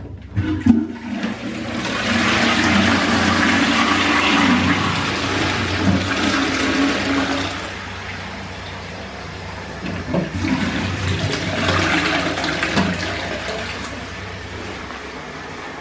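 Urinal flushing: a click or two from the flush valve, then water rushing down the ceramic bowl for several seconds. The rush eases, surges again about ten seconds in, and fades away.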